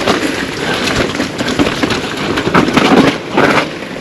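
Pivot Firebird 29 mountain bike riding down a trail: a steady rush of tyres rolling over dirt and rock, with rapid clicks and knocks of the bike clattering over bumps.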